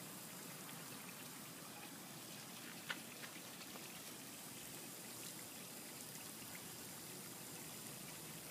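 Lawn sprinklers spraying water: a faint, steady hiss, with one sharp click about three seconds in.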